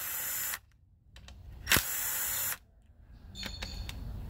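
Cordless power driver spinning 8mm valve-body bolts out of a transmission case, in two short bursts of under a second each.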